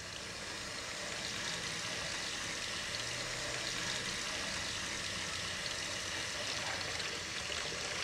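Kitchen tap running steadily, the stream of water pouring over a revolver held under it in the sink.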